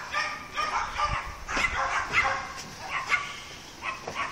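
An animal calling in short, sharp, repeated yaps, two or three a second, with a low bump about a second in.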